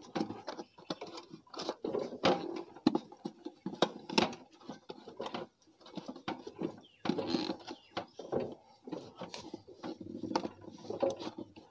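Hands pushing and working an air filter element into the plastic airbox of a 70cc motorcycle: irregular rubbing, scraping and small knocks.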